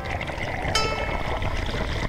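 Intro background music: a plucked-string note sounds about a second in over a steady rushing noise.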